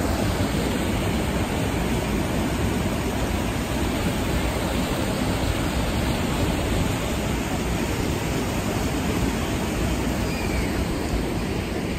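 River water rushing over a weir and a small cascade: a steady, unbroken noise.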